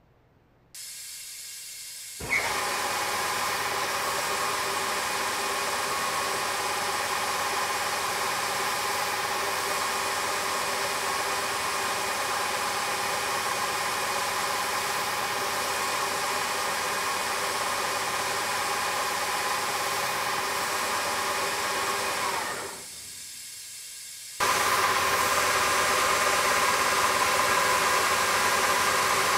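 Shop Fox W1738 wide belt sander running, driven by its 15-horsepower main motor: a steady machine hum with a strong hiss and several steady whining tones. The sound cuts in abruptly about two seconds in, drops away for about two seconds near the end, then comes back slightly louder.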